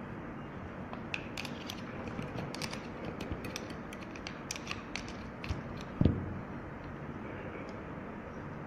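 Small metal clicks and ticks from a car door lock cylinder being handled and worked by hand, with one louder knock about six seconds in.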